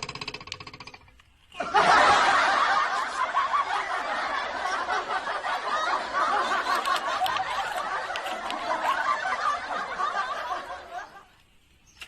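Canned laughter from a crowd, as in a sitcom laugh track, starting suddenly about two seconds in and fading away near the end. A short pitched comedy sound effect trails off in the first second.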